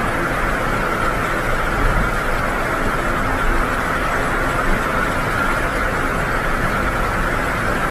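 Steady rushing noise of water churning in a moving ship's wake, with a low engine rumble underneath.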